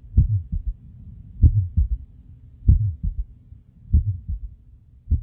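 Slow, close-up human heartbeat: a double lub-dub thump about every one and a quarter seconds, four beats, over a low steady hum.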